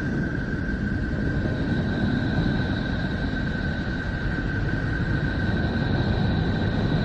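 Sonification of Neptune made from space-probe radio-wave data: a steady low rumbling drone with a steady high whine above it. A second, higher whine joins about two and a half seconds in.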